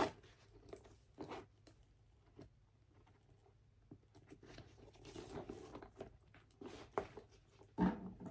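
Faint rustling of a nylon backpack and scattered small clicks from its strap being adjusted by hand, with a louder knock near the end.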